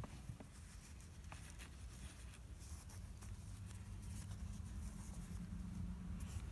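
Faint scratching and rustling with a few light clicks, from hands working felt and fabric pieces, over a low steady hum.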